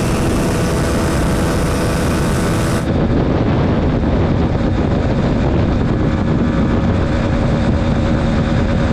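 Onboard sound of a TVS Apache RTR 160 4V's single-cylinder engine running at high speed, about 126 km/h, under heavy wind rush. About three seconds in it cuts to a Bajaj Pulsar NS160 at about 105 km/h, where a steady engine hum shows under the wind.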